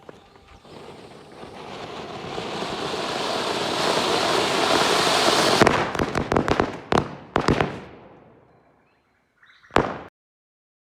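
An anar flower-pot firework fountain hisses, swelling steadily louder for about five seconds. About six seconds in, a string of mirchi firecrackers goes off in a quick run of sharp bangs. One last bang comes near the end, and then the sound cuts off.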